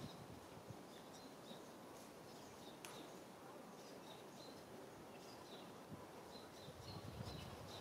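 Faint outdoor ambience: small birds chirping in short, high calls over and over, with a single sharp click about three seconds in and some low rustling near the end.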